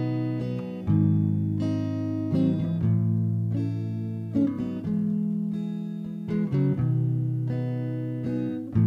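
Clean-toned electric guitar playing a song's intro: ringing chords held and changed every second or two, with no voice.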